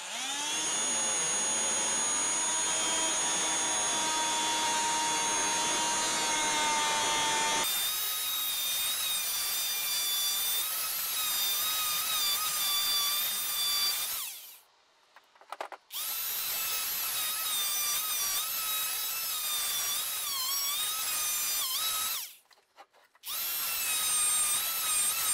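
DeWalt oscillating multi-tool cutting through pallet-block wood: a steady high-pitched buzz with whining overtones. Its tone shifts abruptly about a third of the way in, and it stops twice, for about a second and a half just past the middle and for about a second near the end, then starts again.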